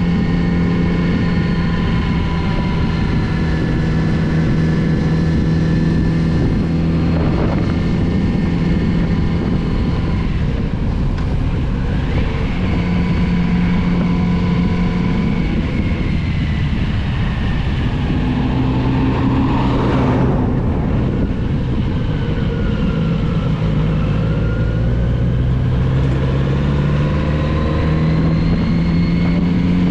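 A Kawasaki Z900RS's inline-four engine running under way, its revs holding steady, dropping, then climbing again near the end as the bike works through bends, with wind noise and a brief rush of noise about two-thirds of the way in.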